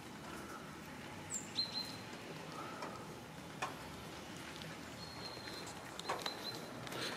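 A few sharp clicks of cats chewing wet food from plastic trays, with short high bird chirps in the background.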